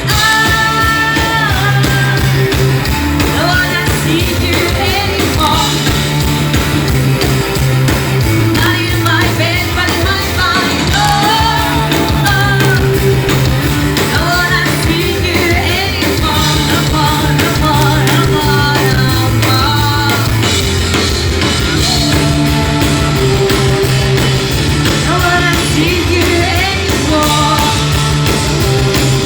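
Rock band playing live: a sung lead vocal over a steady, stepping bass line and drums.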